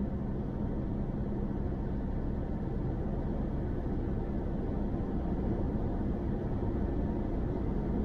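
Steady road and tyre noise from a car at motorway speed, heard from inside the cabin, with a low, even engine hum underneath.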